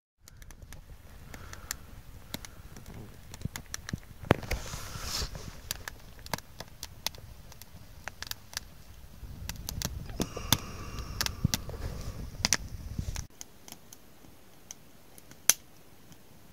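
Small campfire of split sticks crackling, with many irregular sharp pops. A low rumble comes up in the middle and cuts off suddenly about 13 seconds in.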